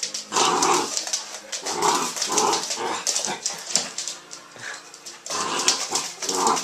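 A dog making a series of short whining sounds over a fast crackle of clicks.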